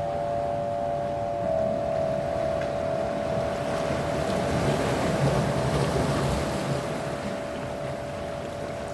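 Sea waves washing in, one swell building and peaking about midway before easing off, under a sustained drone of several steady held tones.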